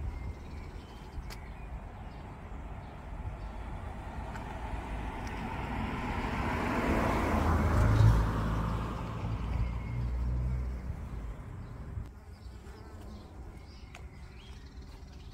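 A car drives past, its noise and low engine hum swelling to a peak about halfway through and fading away a few seconds later.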